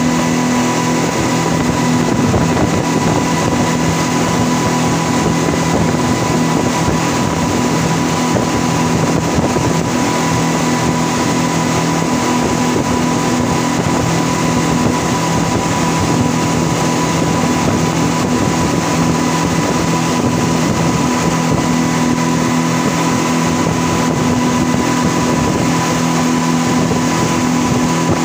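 Three outboard motors at the stern of a speedboat running steadily at speed, a constant drone over the rush of the churning wake.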